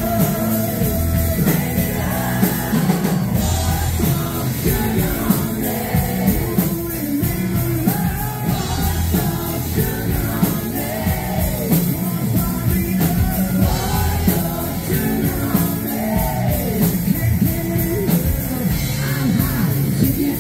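Live rock band playing through a PA: a singer belting out the vocal line over electric guitars and a steady rock beat.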